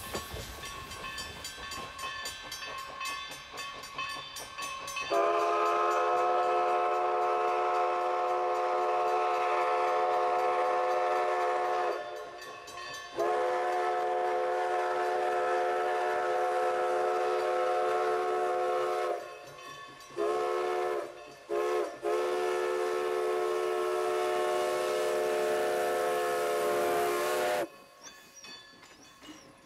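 Steam whistle of Everett Railroad No. 11, a 1920 Alco 2-6-0 Mogul, blowing the grade-crossing signal: two long blasts, a short one and a final long one, several tones sounding together. It starts about five seconds in and cuts off sharply near the end, leaving the quieter sound of the train rolling past.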